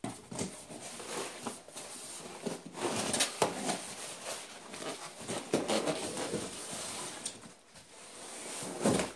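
Cardboard shipping box being handled: flaps and sides rustling and scraping as the box is turned upside down and set on its open flaps, with a few soft knocks mixed in.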